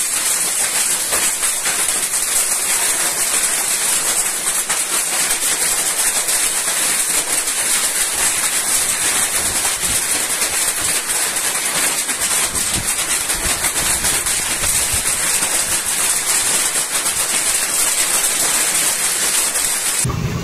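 Hailstorm: hail and heavy rain pelting down, a loud steady hiss thick with fine pattering impacts.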